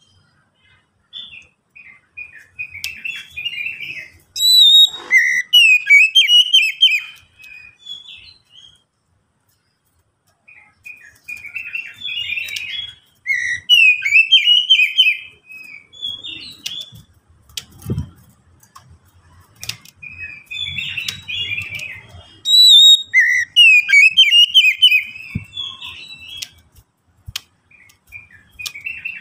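Oriental magpie-robin (kacer) singing: three bouts of quick, varied, high phrases, separated by short pauses.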